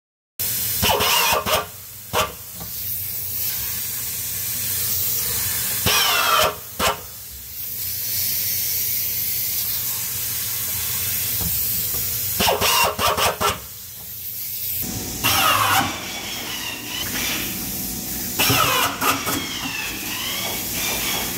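Pneumatic screwdriver driving hinge screws into plywood in repeated short bursts, its whine rising and falling with each screw, over a steady hiss of air.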